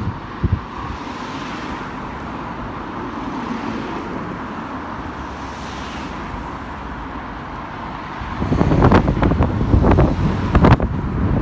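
Steady town street traffic noise with cars going by. About eight seconds in, a much louder rumble of wind buffeting the microphone takes over, with sharp knocks and thumps.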